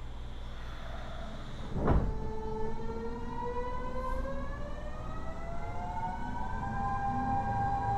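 Kyoto Subway Series 50 train's Mitsubishi GTO-VVVF traction inverter as the train pulls away: a steady low hum, a thump about two seconds in, then several whining tones that rise together in pitch as the train accelerates.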